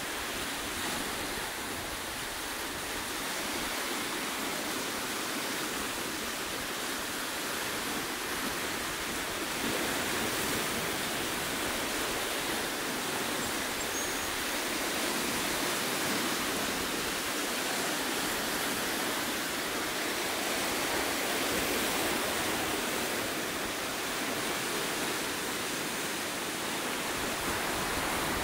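Ocean surf breaking and washing over rocky ledges: a steady rushing that swells slightly now and then.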